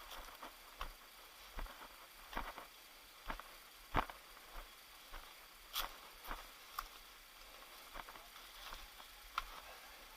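Footsteps: irregular soft crunches and knocks, roughly one a second, with a sharper knock about four seconds in.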